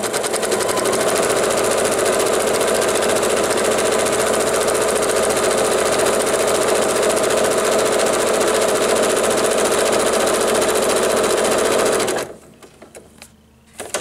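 Electric sewing machine stitching at a steady high speed through fabric and half-square-triangle paper with a small, close stitch, then stopping abruptly about twelve seconds in. A few soft clicks follow near the end.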